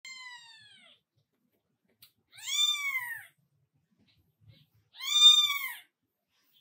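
Newborn kitten mewing: three high, thin cries, each under a second long, with quiet between them. The first trails off downward at the start; the other two rise and then fall in pitch.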